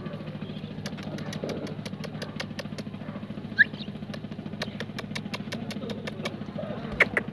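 A small engine idling steadily, a low even hum with a fast fine pulse, with sharp clicks scattered through and one short rising high squeak about three and a half seconds in.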